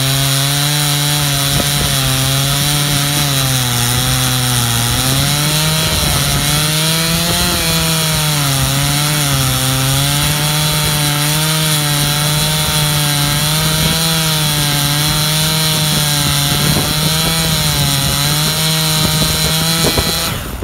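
Stihl MS 391 two-stroke chainsaw with a 30-inch bar and full-chisel skip-tooth chain, running at full throttle while cutting through a large eucalyptus log. The engine note dips and recovers again and again as the long bar loads it, showing a saw with little power to spare.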